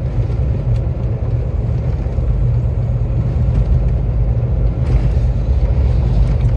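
Iveco Stralis truck cruising at road speed, heard from inside the cab: a steady low engine and road rumble, with a short louder rush about five seconds in.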